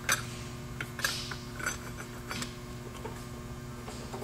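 Light, irregular metallic clicks and clinks as steel and friction clutch plates are slid one by one onto the splines of a ZF 5HP24 automatic transmission's clutch pack, over a steady low hum.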